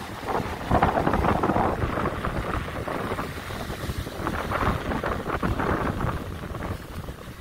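Gusty wind buffeting the phone's microphone, over the steady rush of heavy surf breaking on the beach.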